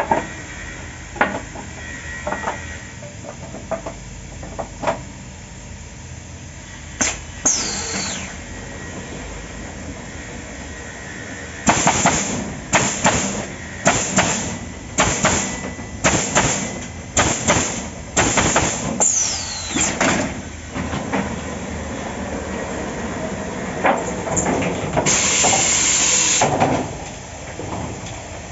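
Automatic pneumatic stringer pallet nailing machine at work: scattered knocks, then a quick run of about fourteen loud nail shots, roughly two a second, each with a burst of air hiss, and a steady blast of air hiss near the end.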